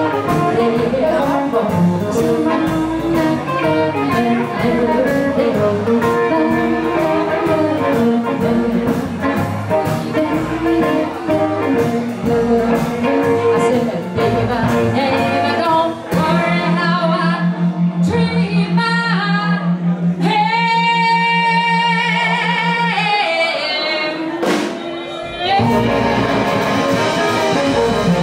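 Live band playing a blues-rock number with singing over electric and acoustic guitars, upright double bass and drum kit. A little past halfway the band drops out to a single pulsing low note under the sung line, then the full band comes back in near the end.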